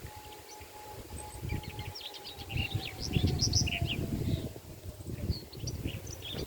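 Songbirds chirping over an irregular low rumble, with a faint distant siren whose single tone slowly falls in pitch as it winds down.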